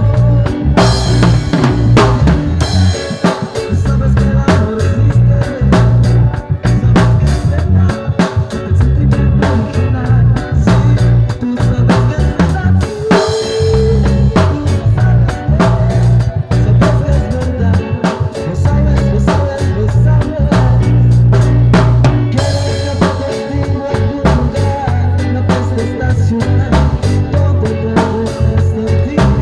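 Band music with a drum kit keeping a steady beat over a heavy bass line.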